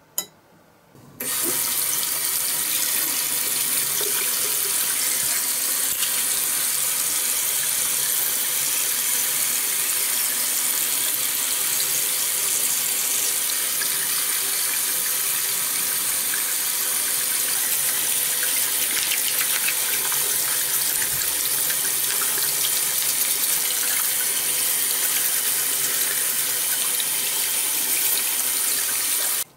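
Bathroom sink tap running steadily, the stream splashing into the basin and over a small metal part held under it. The water starts about a second in, just after a short click.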